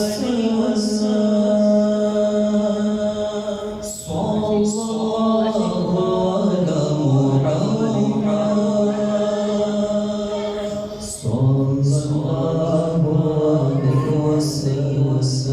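A male voice chanting durood (salawat on the Prophet) in long, held, slowly gliding notes, with brief pauses for breath about four and eleven seconds in.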